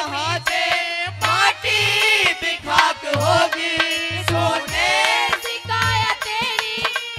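Male singer performing a Haryanvi ragni folk song through a microphone and PA, his voice wavering and bending in long melodic lines. Deep drum strokes keep a rhythm underneath, with steady held instrument tones.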